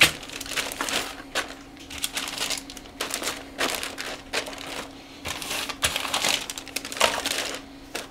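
Clear plastic bags crinkling and rustling in irregular bursts as bagged plastic model-kit sprues are handled, pressed flat and laid in a cardboard box.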